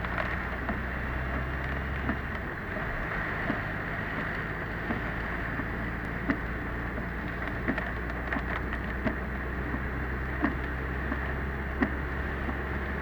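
Car driving in typhoon rain, heard from inside the cabin: steady road and engine noise under a hiss of rain and spray, with a short light knock repeating about every second and a half.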